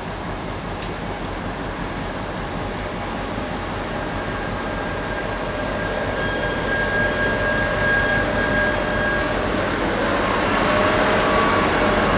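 SJ Y2 (IC3-type) diesel multiple unit rolling into the platform and passing close by, its running noise growing steadily louder. A thin, steady high squeal sounds for several seconds in the middle.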